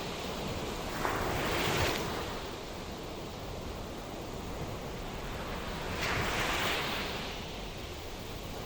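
Ocean surf washing on a shore: a steady rush of water with two waves breaking, about a second in and again about five seconds later.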